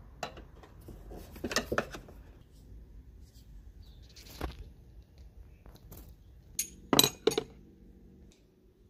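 Hand tools and small metal parts clinking and clicking in a series of sharp, separate knocks, the loudest pair about seven seconds in.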